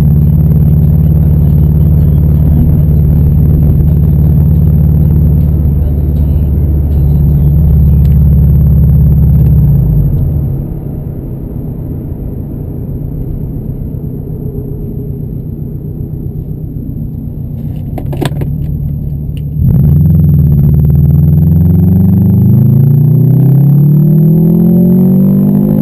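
2011 Subaru WRX's turbocharged 2.5-litre flat-four heard from inside the cabin: a steady drone while cruising, dropping quieter about ten seconds in as the throttle is lifted. A few clicks come near the two-thirds mark, then the engine opens up again and rises steadily in pitch as the car accelerates.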